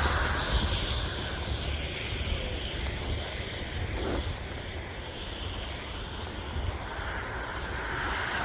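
Steady rumble and hiss of wind with the hum of traffic. Low wind buffeting runs on the microphone, and a vehicle-like swell builds near the end.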